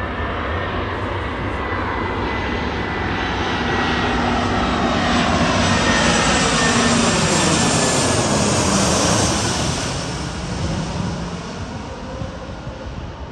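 Airbus A319-100 jet airliner on final approach passing low overhead. The engine noise swells to its loudest a little past the middle, the engine whine falling in pitch as it goes by, then fades away.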